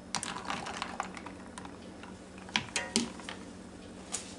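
Light clicks and clatters of a spoon and eggs knocking in a bowl of ice water: a quick flurry in the first second, two sharp clicks near three seconds and one more near the end.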